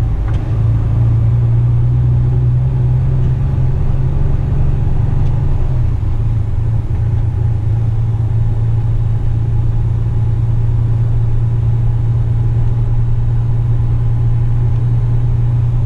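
Heavy rigid truck's diesel engine running steadily at low road speed, a loud even low hum whose note drops slightly about six seconds in.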